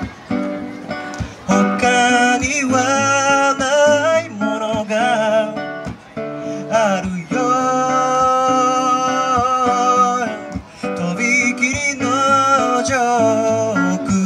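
A man singing live to his own strummed acoustic guitar. The voice wavers and slides between notes and holds one long note near the middle.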